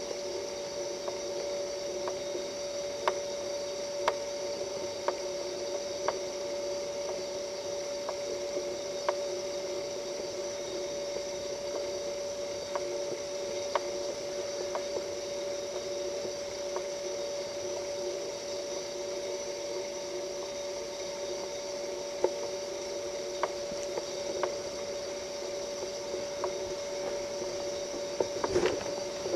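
A steady hum made of several fixed tones, with scattered faint clicks about once a second and a brief cluster of louder knocks near the end.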